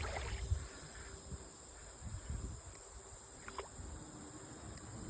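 Faint outdoor ambience: a steady, high, thin insect drone, with a low rumble of wind on the microphone and a couple of faint clicks.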